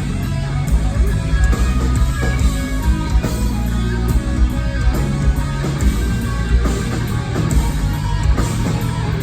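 A rock band playing live, heavy distorted electric guitars over bass and drums.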